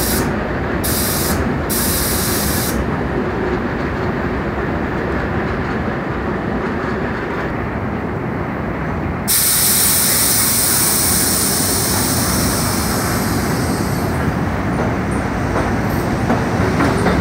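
R62A subway train standing at the platform with its motors and compressors running, letting off several short bursts of compressed-air hiss early on and then a sudden, loud, steady air hiss from about nine seconds in. From about fourteen seconds in it pulls away, its wheels clacking over the rail joints as it gathers speed.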